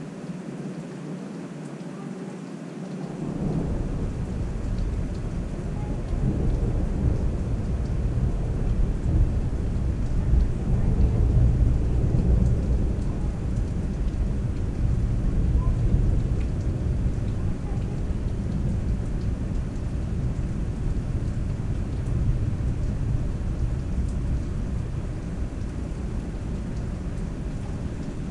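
Long rolling thunder that swells in about three seconds in, is loudest in the middle and slowly fades, over steady rain.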